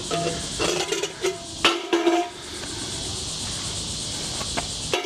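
Metal tea kettle being struck with a cheap sword: a few sharp metallic clanks, each with a brief ringing tone, the loudest about 1.7 s in, over a steady hiss. The strikes stop a little past two seconds in.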